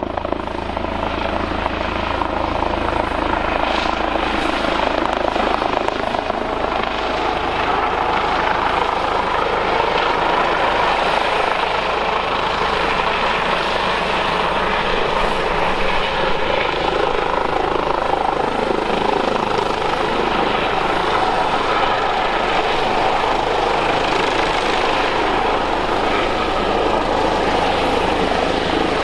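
Airbus H145 police helicopter hovering low over water, its turbines and rotors giving a steady, loud drone, while its slung fire bucket dips in to fill and is lifted out again.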